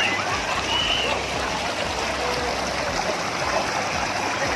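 River water rushing steadily over rocks, with faint voices at the start.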